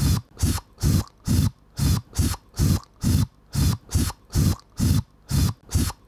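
A short, breathy sound effect looped in a steady rhythm, a little over two times a second.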